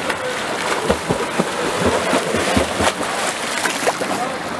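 Water splashing from a swimmer's freestyle arm strokes and kicks: a continuous churning hiss broken by many irregular slaps.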